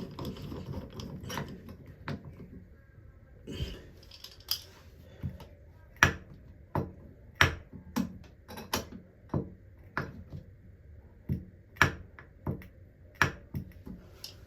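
Screwdriver driving a screw back into the faucet trim: soft handling noise, then from about six seconds in a run of sharp clicks, about one or two a second, as the screw is turned.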